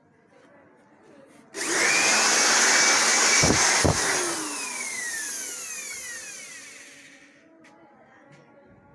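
Electric air blower switched on for about two seconds, then switched off and spinning down, its whine falling in pitch as it slows, used to blow dust out of the copier's document feeder.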